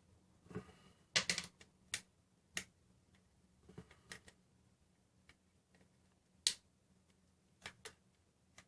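Irregular sharp plastic clicks and snaps as the back cover of a Sony Xperia ZL is pried off the phone's body, a small cluster about a second in and the loudest single click about six and a half seconds in.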